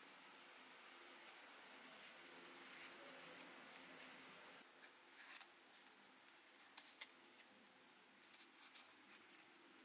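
Near silence, with faint rustling and a few light clicks as hands handle and press on a small folded cockpit piece.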